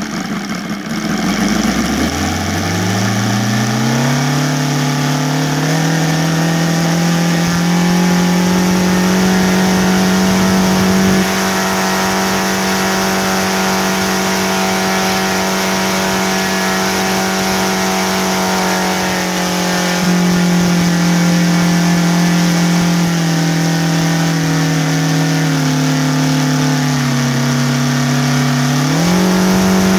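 OS Sirius 7 FR7-420 seven-cylinder model radial engine, converted to gasoline with CDI ignition and swinging a 24x10 propeller, revving up from idle to high throttle over the first few seconds. It holds a steady high note for a long stretch, throttles back in steps, then opens up sharply again near the end.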